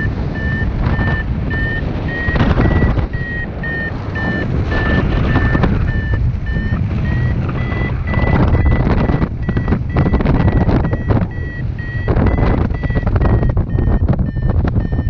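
Paragliding variometer beeping in a fast steady series, about two or three short beeps a second, its pitch rising a little about halfway through and easing down near the end: the audio climb signal of a glider going up in lift. Heavy wind rushes on the microphone underneath, swelling and dipping.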